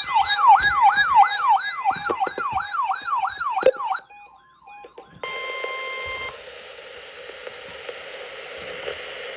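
An electronic yelp siren, its pitch sweeping up about three times a second, stops abruptly about four seconds in. After a short near-quiet gap, a steady high beep sounds for about a second, then radio hiss.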